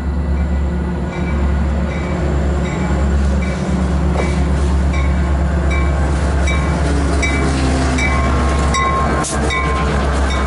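Metra MP36PH-3S diesel locomotive, with an EMD 16-645 prime mover, approaching and passing close by at a station platform. Its engine drone is loud and steady. A bell dings about twice a second over it.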